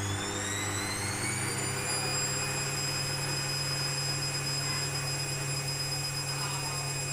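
Hoover integrated washing machine's drum motor spinning up during its service-mode test cycle: a rising whine that levels off about two seconds in and holds as a steady high whine, over a steady low hum.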